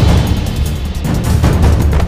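Tense, angry action score with a heavy, pulsing low end.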